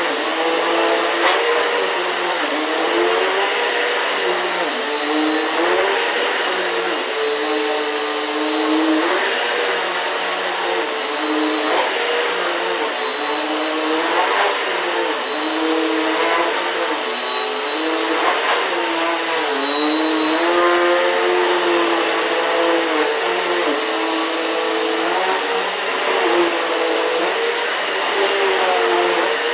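Eureka PowerSpeed upright vacuum cleaner running over the floor. Its motor pitch dips and rises every couple of seconds as it is pushed back and forth, under a steady high whine. There are a couple of brief clicks about 12 and 20 seconds in.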